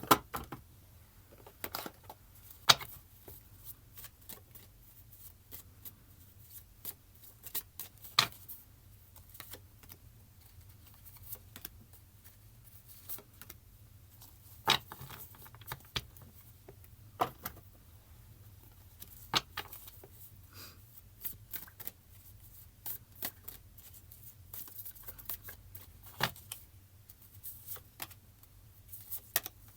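Tarot cards being shuffled and laid down on a table: scattered, irregular taps and slaps at uneven intervals over a faint low hum.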